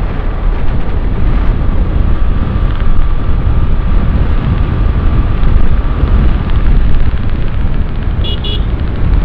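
Wind buffeting a helmet-mounted phone's microphone on a moving motorcycle, a loud, dense low rumble with the motorcycle running underneath. Two short high beeps near the end.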